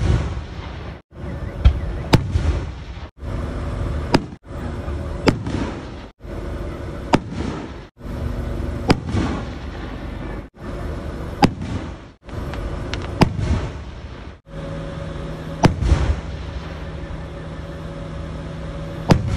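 Aerial firework shells bursting overhead: sharp bangs, many in quick succession, over a continuous rumbling crackle. The sound drops out briefly every second or two where short clips are joined.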